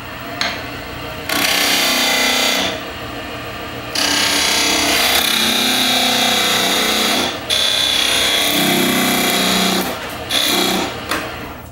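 Skew chisel cutting into cocobolo spinning on a wood lathe, making V cuts down through the piece into the waste block behind it to part off the foot. The cutting comes in four passes, the longest about three seconds, with the lathe running more quietly between them.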